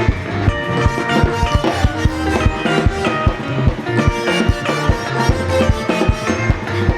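Live praise-and-worship band music: sustained keyboard chords over a steady drum beat, with no singing.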